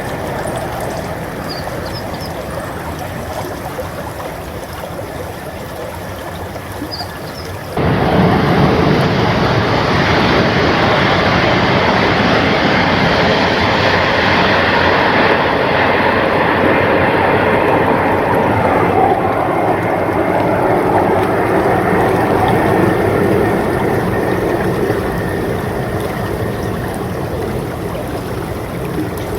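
Hokuriku Shinkansen high-speed train passing: a steady rushing noise that starts abruptly about eight seconds in and slowly fades near the end.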